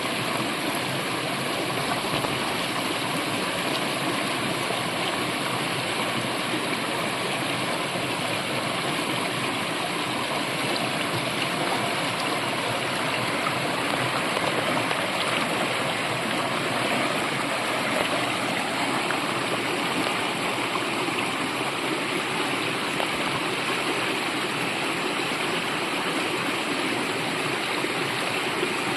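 Brook flowing: a steady, even rush of running water.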